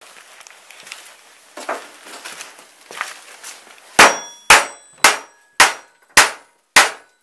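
Hammer striking steel on a metal workbench: a few light knocks and taps, then six hard, evenly spaced blows about two a second, each with a short metallic ring.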